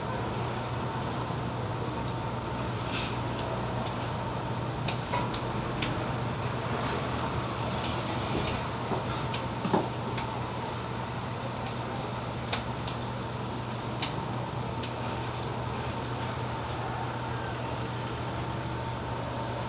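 Steady hum of electric fans in a barbershop, with a faint steady tone. Over it come about a dozen light, irregular clicks and snips from a barber's hand tools working at a client's head, the sharpest one about halfway through.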